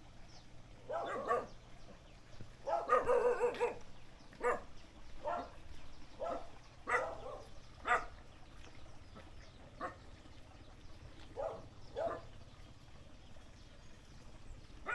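Village dogs barking at a passing stranger: a run of quick barks about three seconds in, then single barks every second or so.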